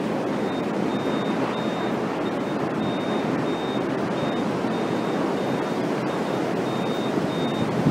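Steady rushing wind of a large tornado nearby, an even noise that holds level throughout. A faint high tone keeps breaking off and coming back through it.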